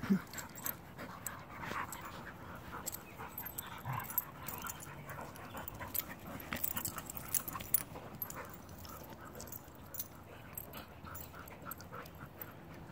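A group of dogs, Airedale terriers among them, play-wrestling: faint panting and scuffling, with many short clicks and rustles.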